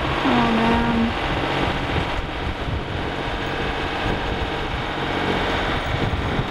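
Sailboat's inboard engine running steadily in gear while motoring, heard from the cockpit, with the prop turning freely now that a chunk of wood has been cleared from it.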